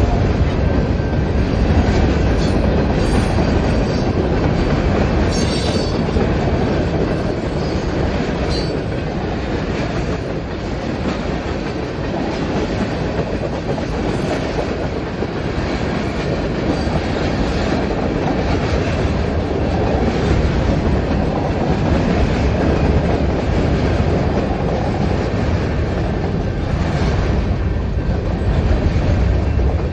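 A train rolling past, its wheels clacking over the rails under a steady rumble.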